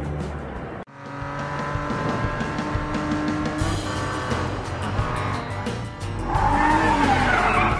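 Cartoon truck sound effects over background music: an engine running, then a loud tire screech in the last two seconds.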